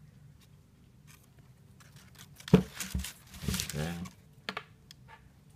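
Sneakers being handled in a cardboard shoebox: a sharp knock about two and a half seconds in, then tissue paper crinkling and rustling as a shoe is moved in the box.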